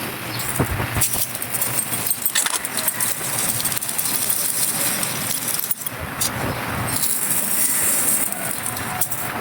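Dry, crunchy clay-like texture being crushed and crumbled, a dense run of small crackles and crunches.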